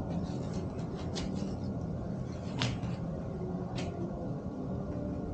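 Cardboard parcel being handled during unboxing: three short sharp clicks, about one, two and a half and four seconds in, over a steady low hum.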